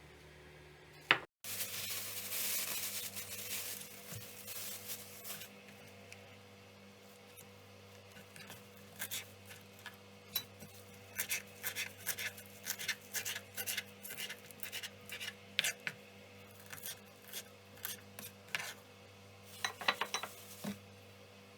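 Kitchen handling sounds: a few seconds of scraping, then a long run of irregular short clicks and scrapes of utensils and dishes, about two or three a second.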